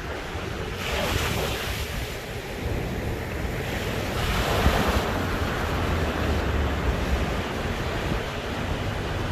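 Sea waves breaking and washing up the shore, with two louder surges of surf about a second and four seconds in, over a steady low rumble of wind on the microphone.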